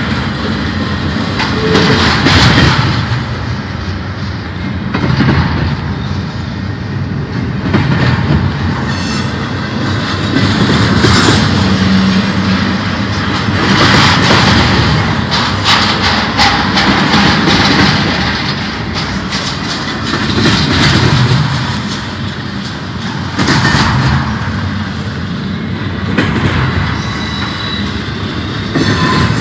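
Freight cars of a BNSF double-stack intermodal train rolling past, their steel wheels clattering on the rail in a continuous rumble that swells every two to three seconds as each set of trucks goes by.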